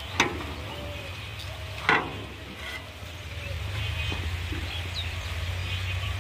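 Hand hoes striking into soil: two sharp hits about a second and a half apart, over the steady low hum of an idling farm tractor.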